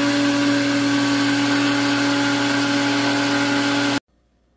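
Countertop blender motor running at a steady high speed, blending a smoothie: a strong steady hum under a loud whir. It cuts off abruptly about four seconds in.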